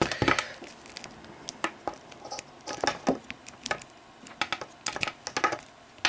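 Hands handling and uncoiling USB cables: irregular clicks and taps of the plastic plugs against the desk, with light rustling of the cable, most of them in the first half-second.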